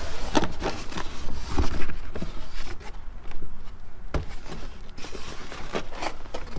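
Cardboard box flaps being opened and a styrofoam packing insert pulled out of the box: irregular rustling, scraping and knocking of cardboard and foam.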